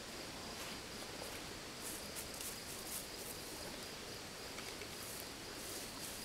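Summer insects chirring: a steady high trill with hazy pulses of higher buzzing every second or so, over faint outdoor background noise.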